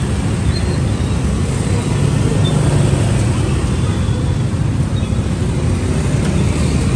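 Street ambience dominated by road traffic: a steady low rumble of passing vehicles.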